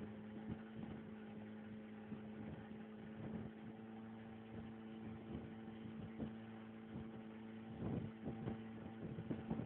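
A small river boat's engine running at a steady cruise: a constant, even hum. Irregular short knocks and slaps come through it, more of them near the end.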